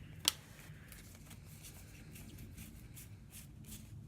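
Trading cards being handled and flipped through by hand: faint card-on-card slides and taps, with one sharp click just after the start.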